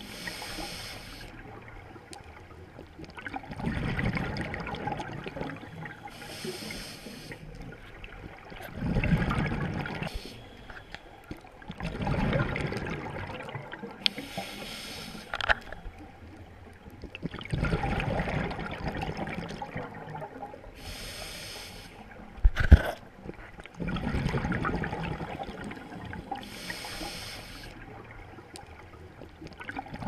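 Scuba diver breathing through a regulator underwater: a short hissing inhale, then a louder gurgling rush of exhaled bubbles, repeating about every six seconds. A sharp click about two-thirds of the way through is the loudest sound.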